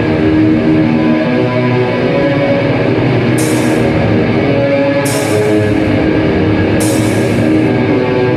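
Death metal band playing live: heavily distorted electric guitars over a drum kit. From about halfway in, crash-like splashes come about every second and a half to two seconds.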